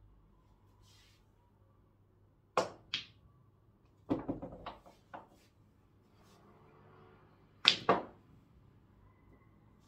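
Pool balls knocking together on a small tabletop pool table: two sharp clicks, then a short clatter about four seconds in, and near the end the loudest pair of clicks close together as the cue strikes the cue ball and it hits an object ball.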